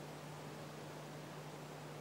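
Steady faint hiss with a constant low hum beneath it: the background noise of the recording, with no animal sounds standing out.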